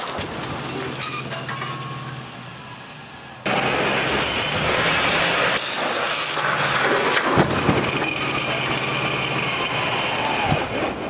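Motorcycle crash test against the side of a tractor. An engine runs with a steady low hum. Then, about three and a half seconds in, a much louder rushing noise starts, broken by several sharp bangs and clattering crunches of the impact.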